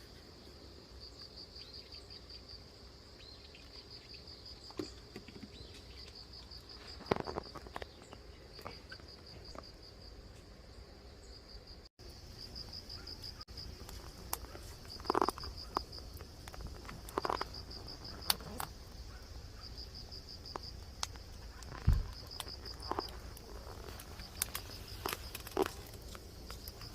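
Crickets chirping in short pulsed trills, one every second or two, with scattered sharp pops and crackles from the burning firewood.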